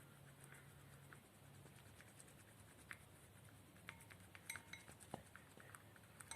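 Faint, scattered clicks and small clinks of a stick stirring a runny shampoo slime mixture in a container, coming more often in the second half, over a low hum of near silence.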